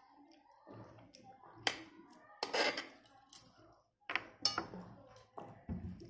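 Spoons clinking and scraping on plates at a meal table: a few sharp clinks, a scrape lasting about half a second about two and a half seconds in, and a dull knock near the end.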